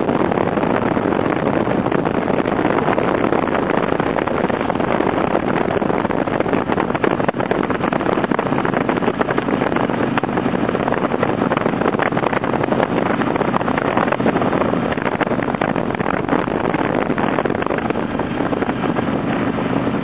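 Motorcycle at highway speed in heavy rain: a steady rush of wind and engine noise, with rain striking in a dense patter.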